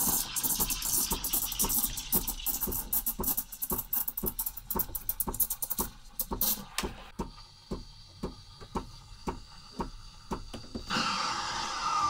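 Sage espresso machine's steam wand aerating milk with loud, splashy, spluttering bubbles over a hiss: the tip is breaking the surface too much, letting in too much air and making the foam too dry. The hiss stops about seven seconds in, leaving a few scattered pops.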